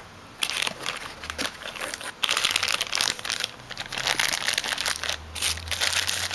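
Clear plastic bag crinkling and crackling as the red test leads sealed inside it are handled.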